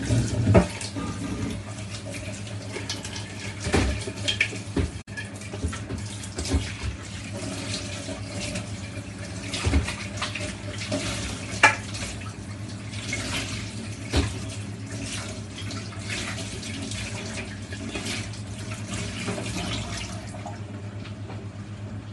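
Water running from a kitchen tap into a sink, splashing unevenly, with occasional sharp knocks and a steady low hum underneath.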